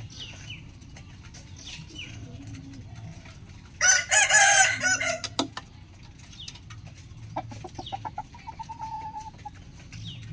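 A rooster crowing once, loudly, about four seconds in, lasting about a second and a half. Later comes a quieter call of quick pulses running into a held note.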